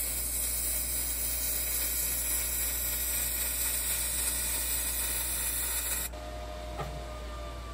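MIG welding arc running steadily on the steel of a smoker's exhaust stack, a loud even hiss that cuts off about six seconds in. A faint click follows about a second later.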